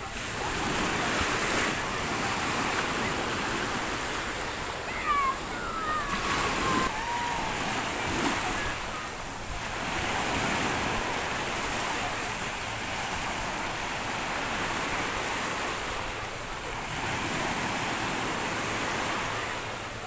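Sea waves washing on a shore: a steady rushing that swells and eases in loudness. A few short high gliding calls come through about five to eight seconds in.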